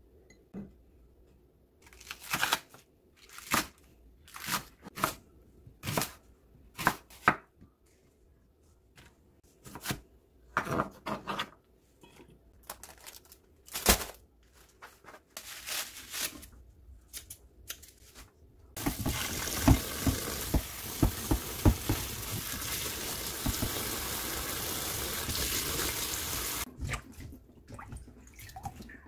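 A string of sharp knocks about a second apart, then kitchen handling clatter. Near the middle a kitchen sink tap starts running into the sink for about eight seconds to wash chives in a stainless colander, then cuts off suddenly.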